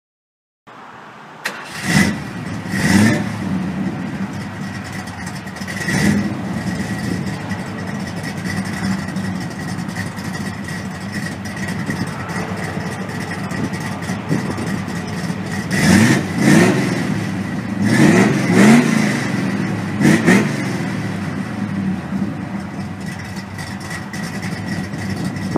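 Car engine started, then revved in short blips with idling in between: a few revs in the first seconds and a run of several more about two-thirds of the way through.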